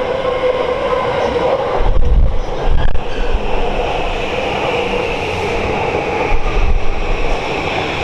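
JR East E235-series Yamanote Line electric commuter train pulling into the station and running past close by, its wheels and running gear rumbling. The low rumble is heaviest about two to three seconds in, and a high steady whine comes in from about four seconds as the train slows along the platform.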